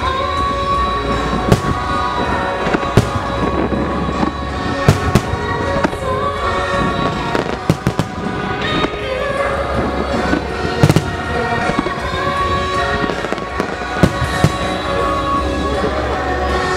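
Aerial firework shells bursting in a rapid, irregular series of sharp bangs, with a cluster of heavy booms about two-thirds of the way through. Loud music accompanying the display plays underneath.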